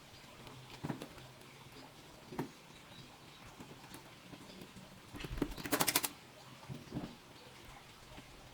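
Scattered light clicks and taps from laptop parts being handled during a repair, with a quick clatter of several sharp clicks about five and a half seconds in.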